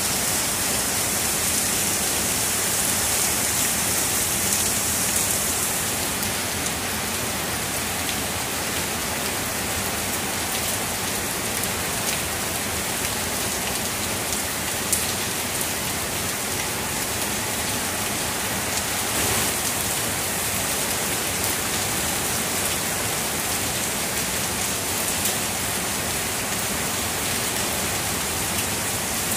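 Heavy rain falling steadily, a dense even hiss with a few sharper drop hits scattered through it; the hiss is a little brighter for the first six seconds.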